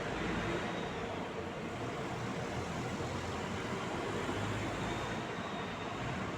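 Steady city street traffic noise: a continuous wash of passing cars with a low rumble.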